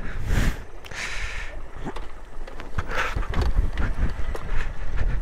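Suzuki VanVan 125 motorcycle going down a steep, bumpy grassy track, with irregular knocks and rattles as it rides over the rough ground.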